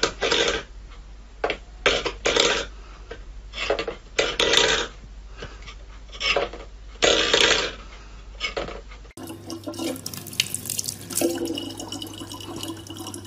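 A small metal bowl scraped and rattled across a wooden floor in irregular bursts. About nine seconds in it gives way to a kitchen tap running steadily.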